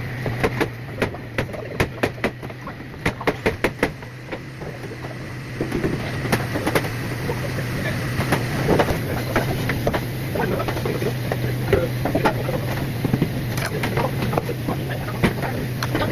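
Metal spatula and knife clicking and scraping on a teppanyaki griddle while a New York strip steak is cut, with quick runs of sharp clicks in the first few seconds and scattered clicks after. A steady low hum runs underneath.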